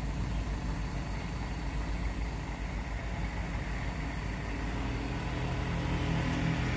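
Passing road traffic: a steady low engine hum, with a motorcycle engine growing louder over the last couple of seconds as it approaches.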